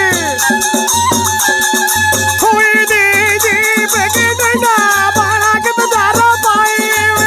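Algoza, paired double duct flutes, playing an ornamented Rajasthani folk melody with bends and trills, over a regular dholak drum beat and the fast clatter of hand-held wooden clappers (khartal).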